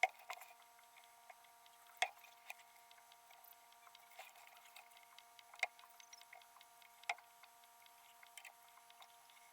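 Near silence broken by a handful of faint, sharp clicks and ticks a second or more apart, over a faint steady hum.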